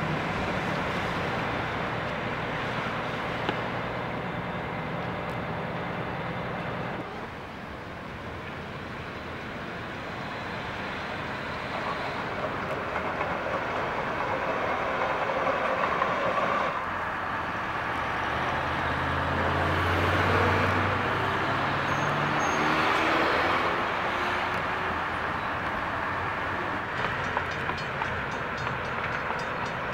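Siemens-Duewag U2 light rail train running along its track, mixed with passing road traffic. Around the middle a low hum rises and then falls in pitch.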